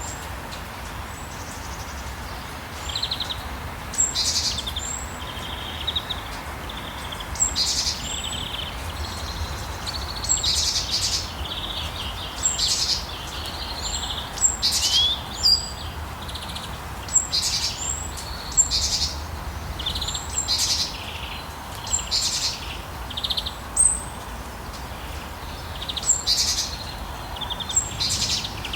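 Songbirds chirping and trilling over and over, with short high calls every second or so, over the steady hiss of falling rain.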